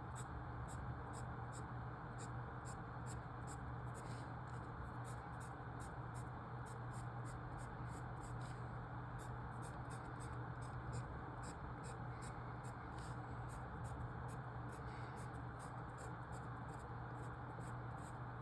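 Faint steady hiss over a low electrical hum, with a faint rapid ticking.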